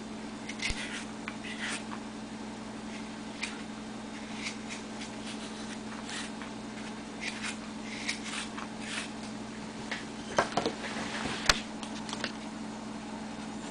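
Hook knife shaving a basswood spoon blank: a run of short, irregular scraping cuts, with one sharp click late on, over a steady low hum.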